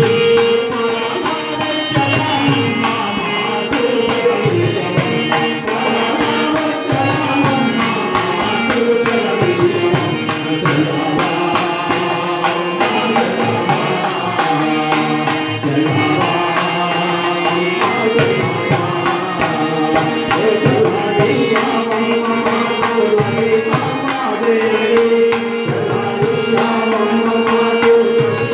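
Telugu devotional bhajan: a man sings into a microphone over harmonium and a steady beat of hand percussion.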